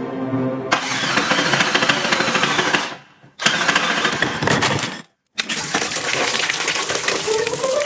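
Heavy hammering power tool, such as a demolition or rotary hammer, running hard in three stretches with two short, abrupt silences between them. Music comes back near the end.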